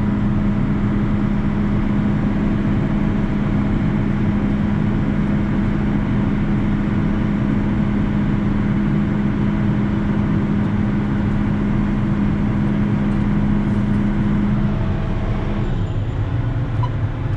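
Heavy farm machinery running steadily: a loud, even engine drone with a strong hum that drops to a lower pitch about fifteen seconds in.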